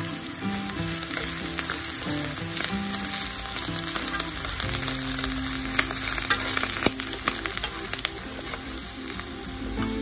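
Pieces of baked wheat gluten and shiitake mushrooms sizzling in oil in a nonstick frying pan while being stirred with wooden chopsticks, with a few sharp clicks of the chopsticks against the pan about six to seven seconds in.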